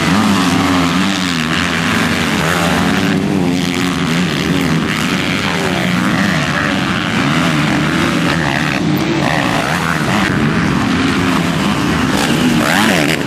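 Motocross bike engines revving hard on the track, the pitch rising and falling again and again as the riders twist the throttle and shift through corners and jumps.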